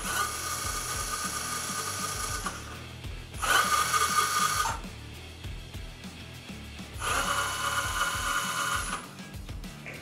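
Remote-control dump truck's electric mechanism whining in three bursts of one to two seconds each, a steady high whine with a hiss, the middle one shortest and loudest, over quiet background music.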